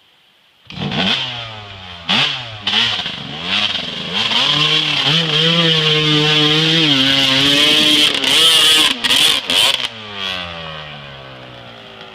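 An off-road vehicle's engine comes in suddenly about a second in and is revved in short blips. It is then held at higher revs for several seconds, gives a few sharp bursts of throttle, and drops back to a lower, steadier run near the end.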